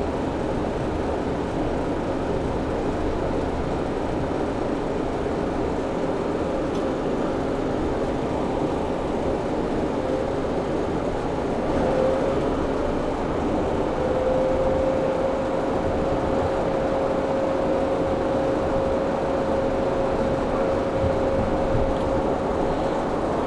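Commercial refrigeration condensing unit running: a steady mechanical hum and fan noise, with a steady whine setting in about halfway through.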